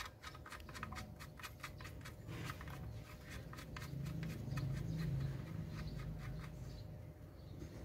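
Faint light metallic clicks, several a second, as the arbor bolt and blade flange of a handheld circular saw are turned by hand onto the blade. The clicks thin out after about three and a half seconds, leaving a low handling rumble.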